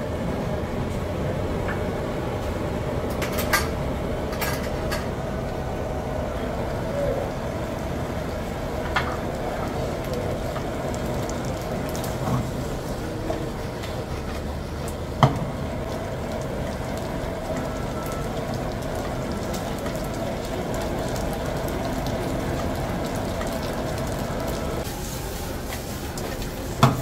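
Sliced sausage frying in a nonstick pan on a gas stove, with the pan shaken and tossed, under a steady hum. A few clicks and knocks of the pan and utensils come through; the loudest is a sharp knock about halfway through.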